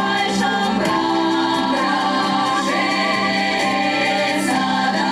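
Women's folk vocal ensemble singing a Mordovian national song in chorus, with several voices holding long notes together.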